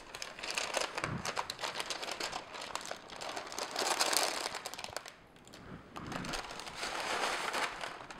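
A sheet of paper crinkling and rustling as it is folded up around a pile of chopped dried and candied fruit, with many small crackles and clicks. Near the end the fruit is tipped off the paper into a pot.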